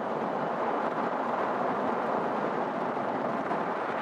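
Steady rush of wind and churning, breaking sea water alongside a ship, with wind buffeting the microphone.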